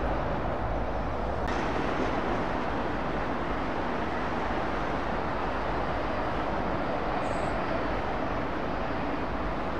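Steady jet noise of a Boeing 787-9's GEnx-1B engines low on final approach to land, an even rushing sound with no rise or fall. About a second and a half in, the sound changes abruptly from the similar noise of another airliner on the ground.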